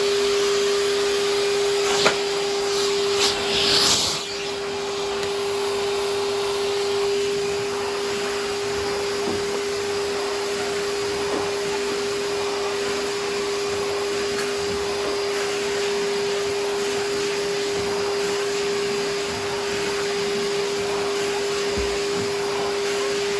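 Numatic George wet-and-dry vacuum cleaner running steadily in wet mode, a constant motor hum with one steady tone. There is a click about two seconds in and a brief louder, higher sucking noise around three to four seconds.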